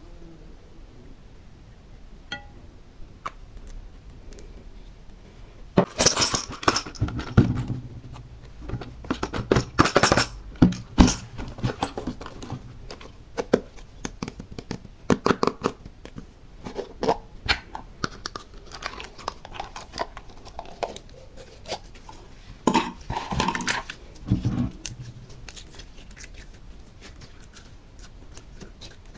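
Slime being worked by hand, squished and stretched, giving bursts of dense clicky popping and crackling separated by quieter pauses.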